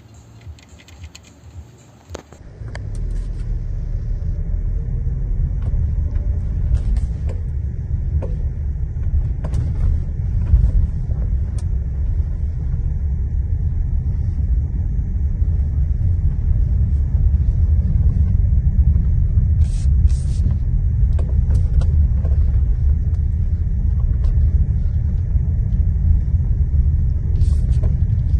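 A car's steady low rumble that starts suddenly about two and a half seconds in, with a few faint clicks over it.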